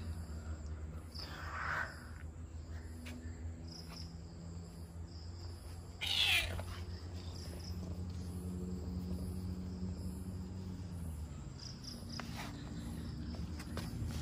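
Domestic cat meowing three times: a short meow about a second in, a louder one about six seconds in that falls in pitch, and a fainter one near the end.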